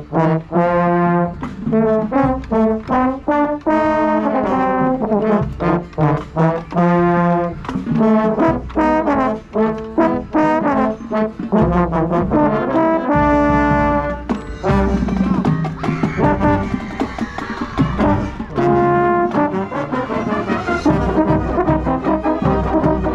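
High-school marching band playing, its brass section (trombones and trumpets) to the fore: short punched chords over drums, with one longer held chord about two-thirds of the way through.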